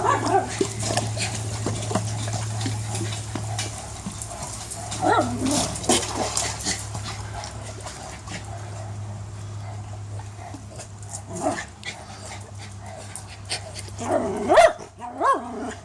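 American Eskimo dog calling out in a few short, pitched cries: a couple about five seconds in, one later, and the loudest cluster near the end.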